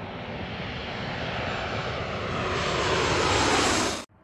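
Jet engines of a Boeing 737 Next Generation airliner (CFM56-7B turbofans) on final approach, growing steadily louder as it comes overhead, with a whine that slowly falls in pitch. The sound cuts off abruptly near the end.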